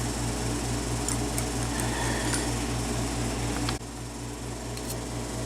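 Steady mechanical hum with a low, rapidly pulsing tone, like a fan or air-conditioner running, with a few faint ticks; it drops suddenly in level near the end.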